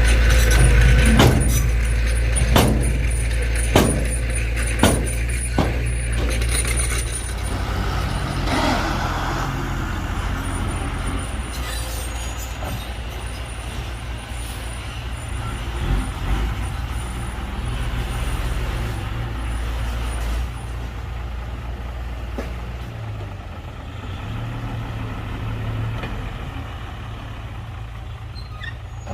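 Heavy diesel earthmoving machinery running with a deep engine rumble that slowly fades. About five sharp knocks come in the first six seconds.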